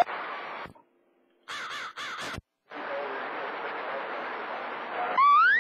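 CB radio receiving 27 MHz skip between transmissions: the audio cuts out twice, with a quick run of harsh squawks about a second and a half in, then opens to a steady hiss of open-channel static. Near the end a rising electronic tone sweeps up as the next station keys up.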